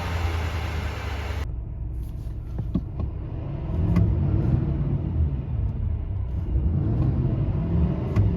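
Heavy-duty pickup's diesel engine idling with a low rumble and being revved in short bursts, the engine note swelling and falling back about four seconds in and again near the end. The sound changes abruptly about one and a half seconds in, where a steady hiss cuts out.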